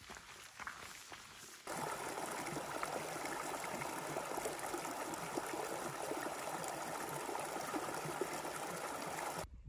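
Footsteps crunching on a stony trail, then, about two seconds in, a shallow mountain stream running over rocks: a steady rushing and babbling that cuts off abruptly near the end.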